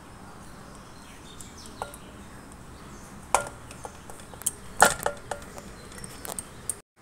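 Steel utensils clinking and scraping against a stainless steel bowl as yogurt is spooned onto raw mutton pieces. There are a few scattered sharp clinks, the loudest about five seconds in.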